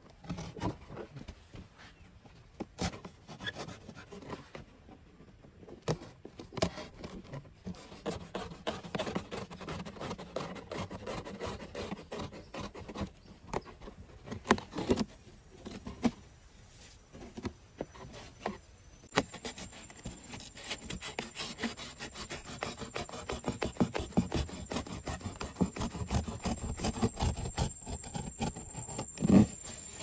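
Utility knife sawing through corrugated cardboard in quick, uneven rasping strokes, with the odd knock as the box is handled.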